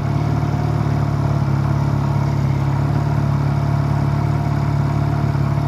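Honda Rebel 250 motorcycle's air-cooled parallel-twin engine running at a steady, unchanging pitch.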